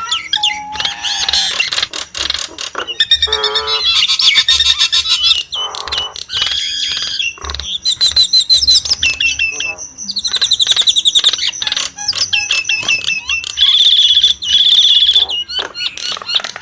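Nias starling (Nias hill myna) singing a long, varied string of loud whistles, chattering calls and fast trills, ending in runs of rapid repeated high notes.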